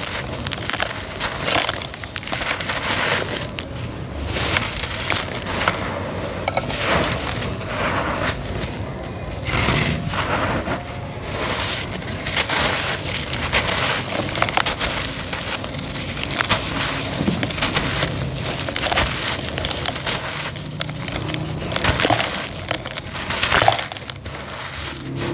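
Crumbly homemade cement being crushed and broken apart, a continuous run of gritty crunches and cracks, several a second.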